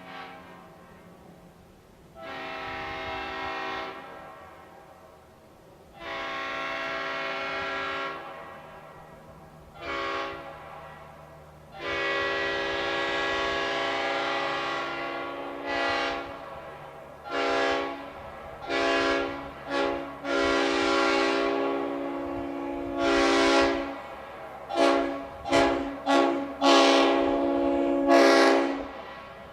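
Multi-chime locomotive air horn sounding a chord in a series of blasts. Several long blasts of two to four seconds come first, then a run of quick short toots, the last one slightly longer.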